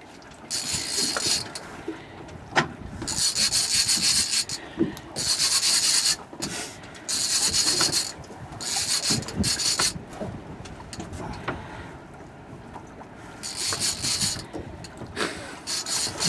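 Fishing reel's drag buzzing in about seven short rasping bursts, each up to a second and a half long, as a big hooked skate pulls line off the reel.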